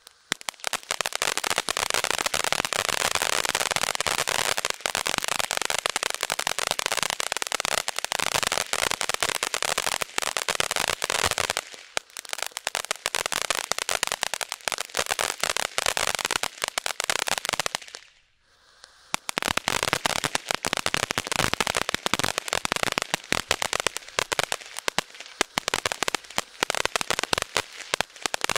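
Firework ground fountain spraying sparks with loud, dense crackling. The crackling falls away briefly twice, the second time for about a second, and then starts up again.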